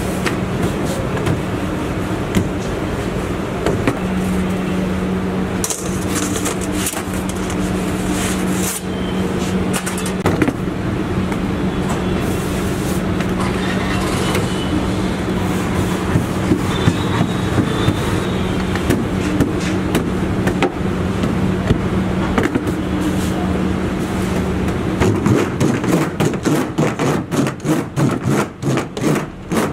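Steady low mechanical hum of street and machine noise, with soft slaps and knocks as pizza dough is stretched and tossed over a floured steel counter. In the last few seconds, rapid tapping as the dough base is pricked all over on the counter.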